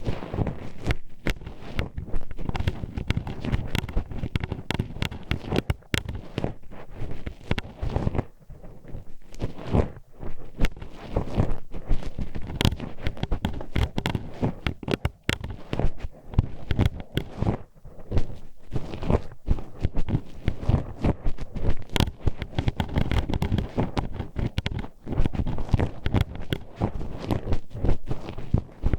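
Metal hairpin poked and scraped inside the ear of a binaural ASMR microphone: a dense, irregular run of sharp clicks and taps over low rubbing and rumbling.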